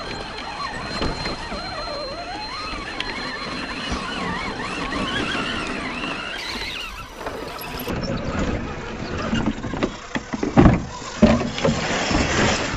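Electric drivetrains of Axial SCX10 radio-controlled rock crawlers whining, the pitch rising and falling with the throttle as they climb rock. In the second half, several sharp knocks and thumps, the loudest about ten and a half seconds in.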